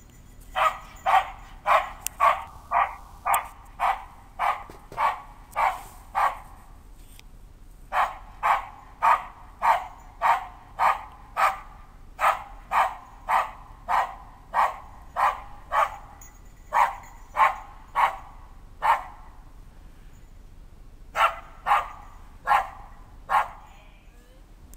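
Search-and-rescue dog barking steadily at about two barks a second, in four runs broken by three short pauses. It is a bark indication, the dog's alert at a found person standing still.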